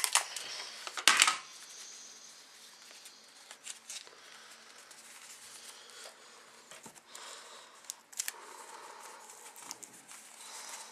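Sticky tape being pulled and torn off and pressed onto a rolled paper tube, with paper rustling. A cluster of sharp clicks and rips comes in the first second or so, then scattered softer clicks and rustles.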